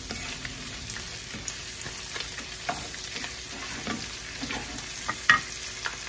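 Shrimp sizzling in garlic butter in a nonstick skillet while a wooden spatula stirs and scrapes them around the pan, with scattered clicks. A sharp knock comes about five seconds in.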